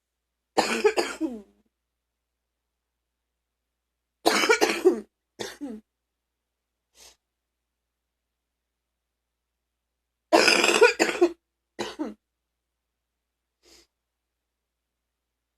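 A sick person's deep coughing in fits: three bouts of several rapid coughs, each about a second long and each followed by a shorter cough or two, plus a couple of faint single coughs.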